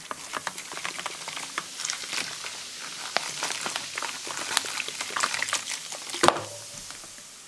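Coca-Cola pouring out of plastic bottles into a plastic tub, the carbonation fizzing and crackling as foam builds up. There is a single knock about six seconds in, and then the fizz dies down to a soft hiss.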